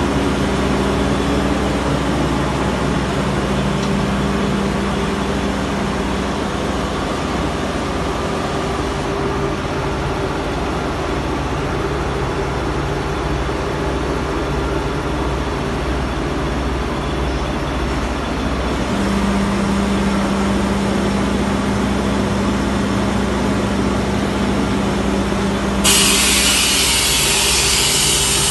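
Screw air compressor with booster running, a steady machine hum with a low rumble and held tones. Near the end a loud hiss starts suddenly and carries on.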